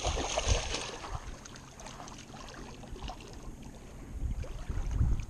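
Water splashing and sloshing at the shoreline as a hooked carp thrashes in the shallows, loudest in the first half-second, with low rumbles near the end.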